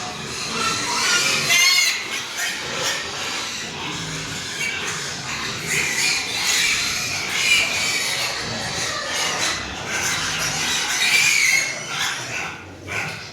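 Pigs squealing, many at once, a continuous high-pitched din with louder squeals rising out of it now and then.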